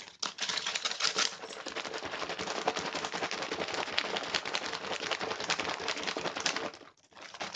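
MRE dairy shake pouch with powder and cold water being shaken hard by hand: a fast, continuous crinkling rattle of the pouch. It stops briefly near the end, then starts again.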